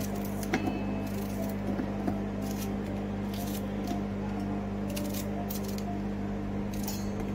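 A kitchen knife slicing through a raw red onion in short crisp cuts, a stroke every second or so, with a few sharp clicks as slices drop into a stainless-steel grinder jar. A steady low hum runs underneath.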